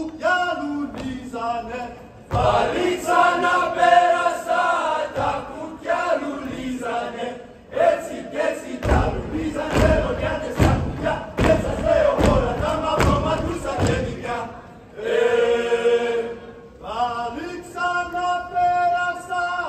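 A group of men singing a Greek folk dance song in sung phrases with short breaks between them. About halfway through, a run of heavy, rhythmic foot stamps on the stage floor joins the singing.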